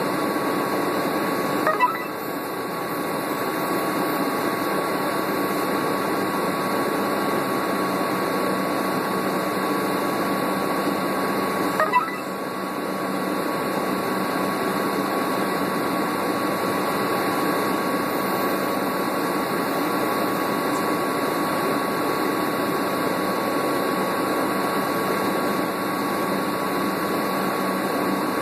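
Steady running noise inside a 2001 New Flyer C40LF transit bus under way, its Doosan CNG engine and drivetrain humming with a steady high tone through it. Two brief sharp sounds come about ten seconds apart, each followed by a short drop in loudness.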